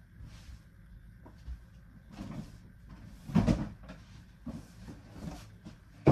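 Knocks and rustling from rummaging in a bedroom closet, with a louder thump about three and a half seconds in and a sharp click near the end.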